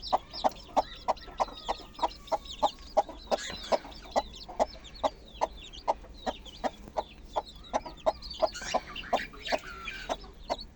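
A hen clucking steadily and rhythmically, about four short clucks a second, the brooding call of a mother hen with newly hatched chicks, while the chicks keep up high, falling peeps.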